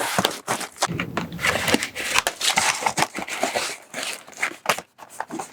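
Protective packaging wrap being crumpled and torn off a new bike, a busy run of crinkling and ripping with many sharp crackles.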